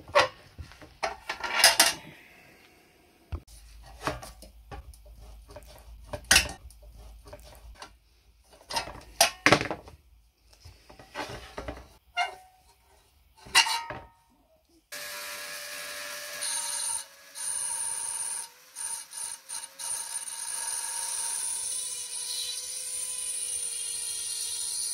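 Sharp metal clicks and scrapes as a flat hand tool pries at a latch on an old metal ship's lamp. About midway a handheld rotary tool starts up with a steady high-pitched whine, grinding at a rivet head on the lamp body, dropping out briefly a few times.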